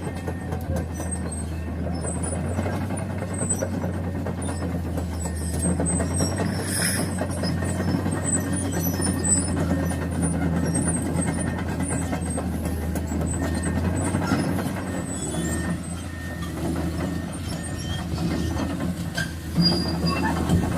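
Heavy diesel engine running steadily with a low rumble, its loudness swelling and dipping a little.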